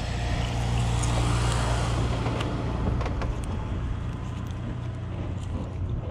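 A motor vehicle's engine running nearby, a steady low hum that swells about a second in and slowly fades as it passes, with a few light clicks in the middle.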